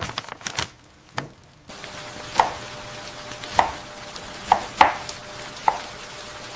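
Knife chopping on a cutting board in single slow strokes, about one a second, over a steady low background hum. A few softer knocks and rustles come first.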